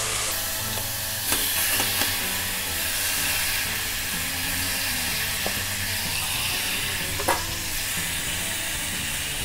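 Pork chops sizzling steadily in a little hot oil in a stainless steel pot as more chops are laid in, with a few light knocks, the sharpest about seven seconds in.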